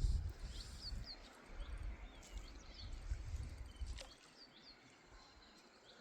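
Wind gusting on the microphone in low rumbles that die away about four seconds in, with small birds chirping in short high notes throughout. A single sharp click sounds about four seconds in.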